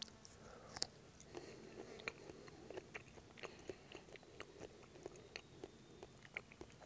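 A person chewing a mouthful of roasted wallaby liver: faint, irregular wet mouth clicks and smacks, about two or three a second.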